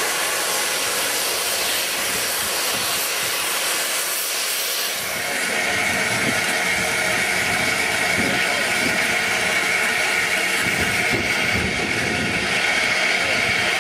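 Steam locomotive standing in steam, hissing loudly and steadily as steam escapes. About five seconds in the sound changes to a closer hiss beside LMS Princess Royal class 6201, with a thin steady high whistle running through it.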